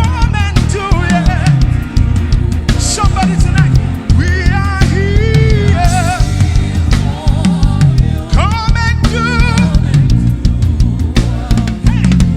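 Live gospel worship band playing, with drum kit, bass and guitar under a lead voice singing with heavy vibrato.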